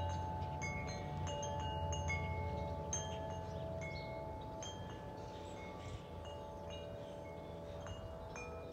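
Wind chimes ringing at irregular intervals, with overlapping tones that hang on after each strike. Beneath them is a low, distant jet rumble from the airliner high overhead, slowly fading.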